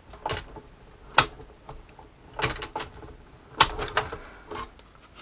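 Hand-cranked die-cutting and embossing machine giving a handful of separate plastic clicks and knocks as the stack of plates and embossing folder is worked into its rollers.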